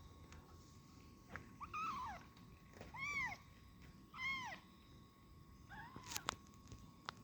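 Kitten meowing four times, high-pitched calls that each rise and fall, with a few sharp clicks near the end.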